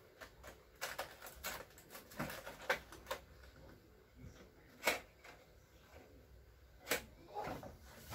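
Irregular light clicks and knocks as a bare LCD TV panel is handled and shifted on a wooden board, the sharpest knocks about five and seven seconds in.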